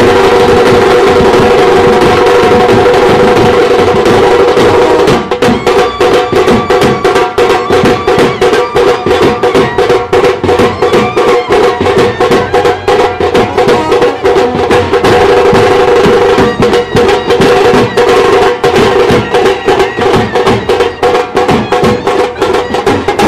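Indian wedding band (band baaja) playing: loud held notes, with fast, dense drumming coming in about five seconds in.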